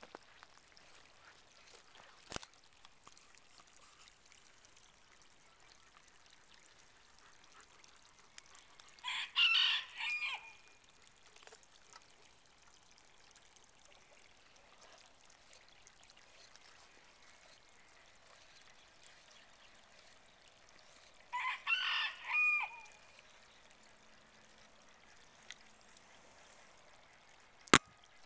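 A rooster crows twice, once about nine seconds in and again about twenty-one seconds in. There are sharp knocks on the camera as the emu pecks it, one early on and the loudest just before the end.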